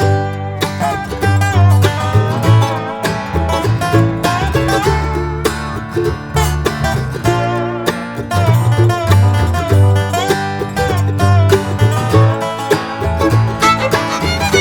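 Instrumental music with plucked string instruments, guitar and banjo, over a moving bass line.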